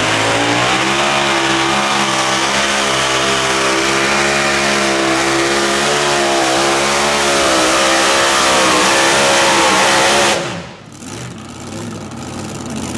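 Mini modified pulling tractor's engine at full throttle, pulling a sled, with a loud, steady high engine note. Just past ten seconds in the throttle is cut suddenly at the end of the pull, and the engine drops to a much quieter running sound.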